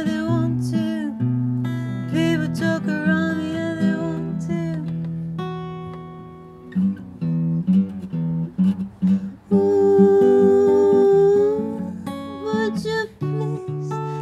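A woman singing over a fingerpicked and strummed acoustic guitar in a live unamplified-style acoustic set. Near the middle the voice eases off, leaving mostly guitar, then comes back with one long held note.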